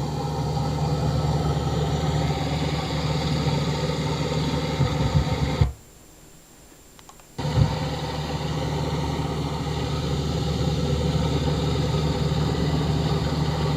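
1999 Rheem heat pump outdoor unit running in cool mode: a steady, heavy compressor and condenser-fan hum that sounds like a hovering helicopter. It cuts out for about a second and a half near the middle, then resumes.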